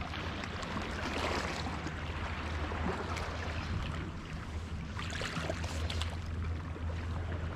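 Sea water washing and lapping, swelling briefly about a second in and again near five to six seconds, over a steady low rumble of wind on the microphone.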